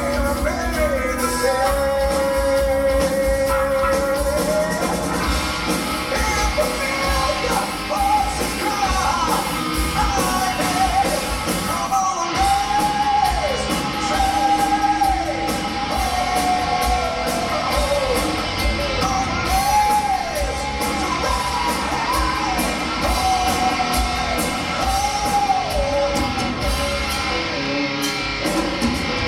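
Heavy metal band playing live through the PA in a large hall: a man's sung vocal over electric guitars, bass guitar and drums. The vocal holds one long note near the start, then moves into shorter rising-and-falling phrases.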